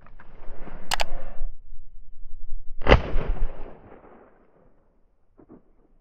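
Two shotgun shots, the first about a second in and a louder, sharper one about three seconds in, each followed by a fading echo.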